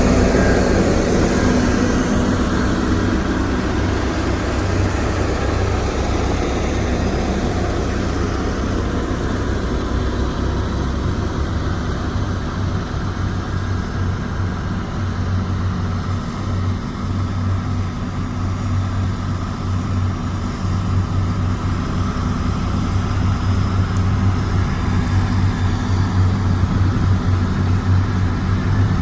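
Motor grader's diesel engine running steadily with a low drone, with gravelly noise that fades over the first several seconds; the sound grows louder again toward the end.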